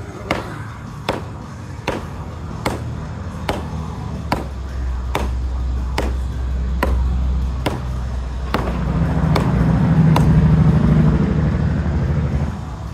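Hatchet chopping into a log on the ground in steady strokes, about one every 0.8 seconds, stopping about ten seconds in. Background music runs underneath and grows louder near the end.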